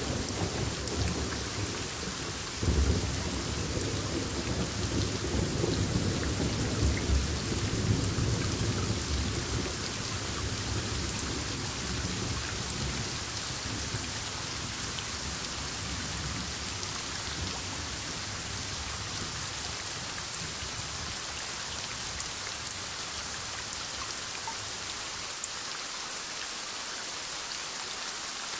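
Heavy rain falling steadily. About three seconds in, a peal of thunder breaks and rolls for several seconds, then dies away, leaving only the rain.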